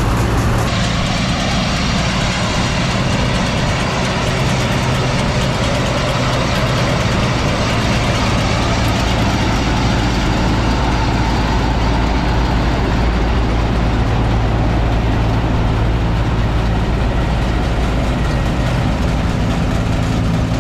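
John Deere 4400 combine's diesel engine running steadily under load, with the whir of its threshing machinery, while it cuts and threshes oats.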